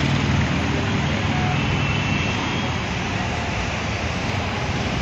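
Road traffic: cars and motorcycles passing close by in slow, dense traffic, making a steady rumble of engines and tyres.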